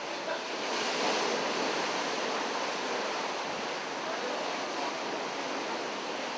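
Open sea water rushing and wind blowing over the microphone, a steady wash of noise that swells slightly about a second in.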